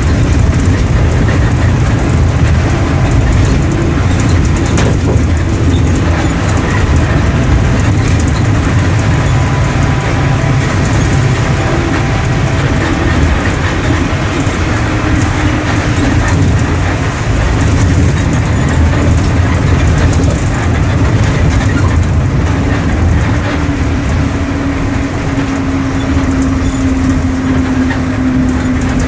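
Mercedes-Benz OM-924 LA four-cylinder turbodiesel of an OF-1721 bus running under way, heard from aboard the bus: a steady low drone with rattles. A faint whine slowly drops in pitch through the second half.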